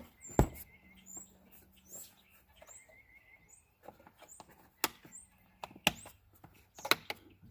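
Sharp plastic clicks and knocks, five or so spread apart, as an ATV's plastic airbox lid is fitted and clipped shut. Faint high bird chirps repeat in the background.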